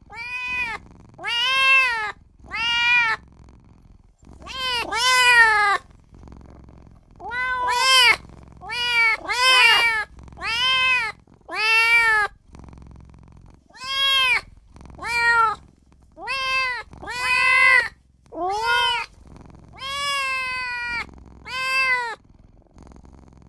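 Young kitten meowing over and over, about eighteen short high meows, each rising then falling in pitch, with short pauses between: a small kitten crying for its mother.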